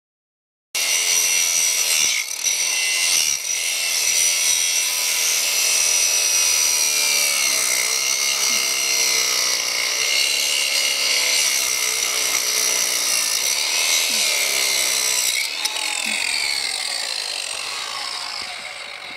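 DeWalt DCG412B 20V cordless angle grinder's 5-inch grinding wheel cutting through a large steel bolt: a loud, steady high-pitched whine with grinding hiss, starting abruptly just under a second in. In the last few seconds it weakens and winds down, falling in pitch, as the battery gives out.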